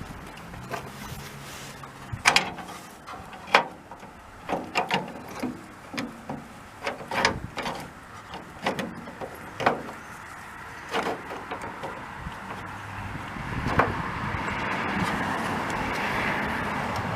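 Irregular metal clicks and knocks as a VW split-window bus's rear cargo door handle mechanism is worked into place in the door by hand. Near the end a steady rushing noise comes up under them.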